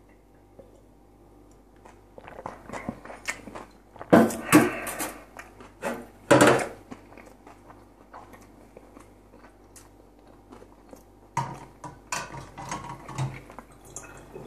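Close-up mouth sounds after a drink of pickle brine: clusters of wet clicks and smacks, with three loud short breathy bursts about four to six and a half seconds in, then more clicking and smacking near the end.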